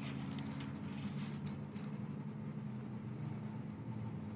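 Faint scratches and ticks of a craft knife blade cutting vinyl skin material along the edge of a golf driver head, a few strokes about a second and a half in, over a steady low hum.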